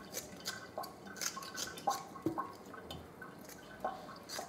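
Kitchen scissors snipping wet raw tripe over a stainless steel sink, with water dripping and plinking into the sink between the cuts in a scatter of short, irregular snips and drips.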